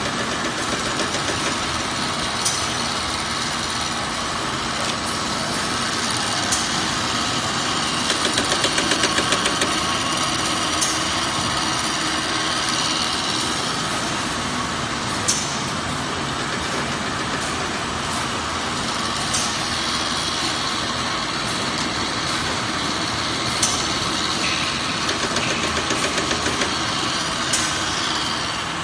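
Automatic snack-food packing line running: a steady mechanical whir of conveyors and machinery, with a sharp click about every four seconds and short spells of rapid ticking about eight seconds in and again near the end.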